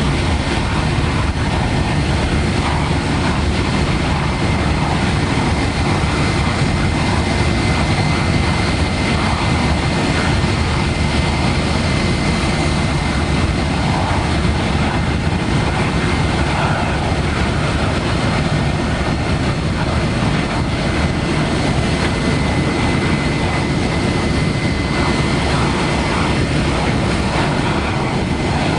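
Jet engines of Boeing 737 airliners running at low taxi power: a steady rumbling noise with a thin, high, steady whine.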